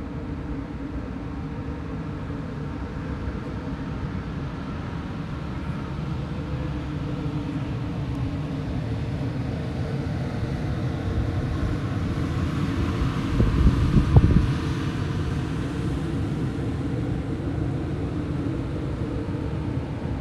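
Steady low outdoor rumble with no clear single source, swelling louder for a moment about thirteen to fourteen seconds in.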